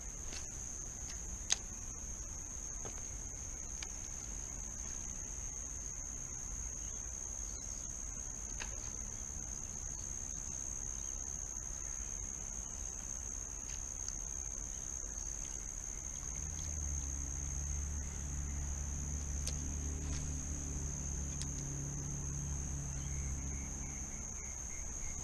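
A steady, high-pitched insect chorus at dusk by a creek, one unbroken shrill drone. About two-thirds through, a low droning hum joins it underneath.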